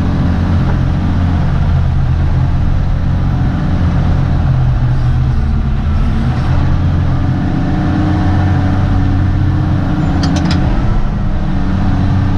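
Diesel engine of a CAT 615C elevator scraper running steadily under work, heard from inside the cab as a loud, even low drone, with a few short clicks about ten seconds in.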